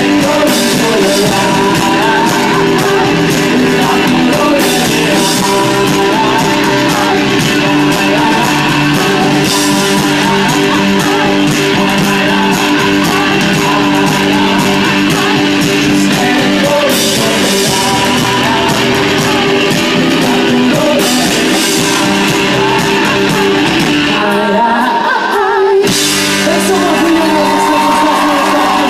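A rock band playing live through a PA, heard from the crowd: electric guitars, bass, drums and a male lead singer. Near the end the bass end drops out for a couple of seconds, then the full band comes back in.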